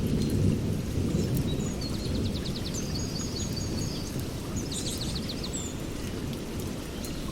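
Songbirds singing rapid trills of repeated high notes, twice, over a continuous low rumble that swells slightly near the start.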